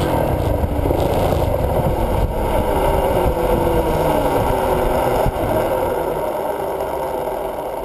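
Kawasaki dirt bike's engine running under way, its pitch rising and falling as the rider works the throttle, picked up by a camera mounted on the bike.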